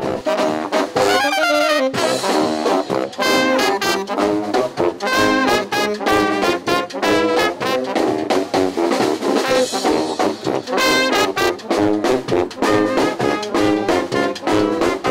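Brass band playing a New Orleans-style tune with short, punchy notes, trumpets over a sousaphone bass line.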